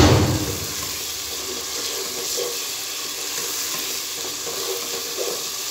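Onion-tomato masala sizzling steadily in oil in a nonstick pot while a wooden spatula stirs and scrapes through it; the masala is fully fried down. A single loud knock sounds right at the start.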